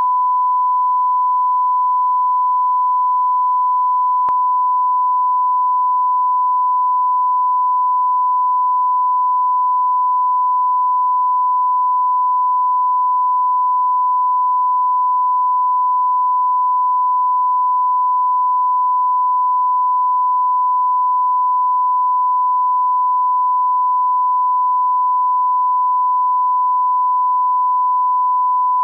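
Line-up reference tone of about a thousand hertz played with SMPTE colour bars at the head of a video tape: one pure, steady beep held without change.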